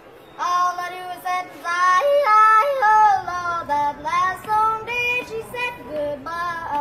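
A child's voice yodeling, holding high notes and jumping abruptly between them.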